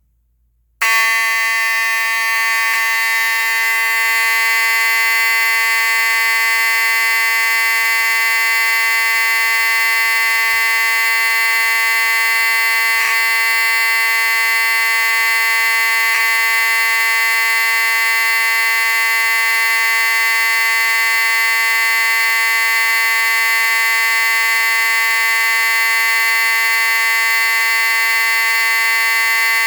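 Wheelock 34T fire alarm horn switching on about a second in and sounding continuously. It gives a steady, buzzy tone with no pulsing or temporal pattern.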